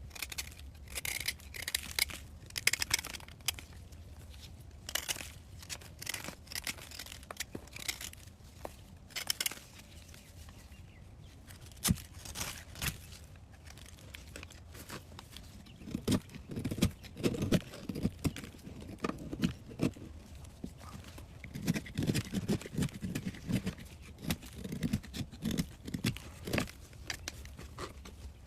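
Bursts of crisp crackling and tearing, as of a brittle material being crumpled or broken by hand. About halfway through, these give way to duller, lower crunching thumps.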